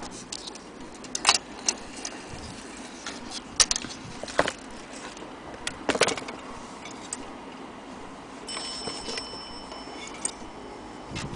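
Irregular clicks and knocks of a vintage column mantel clock's metal and stone parts being handled and turned. About eight seconds in, a clear metallic ringing tone sounds for about two seconds.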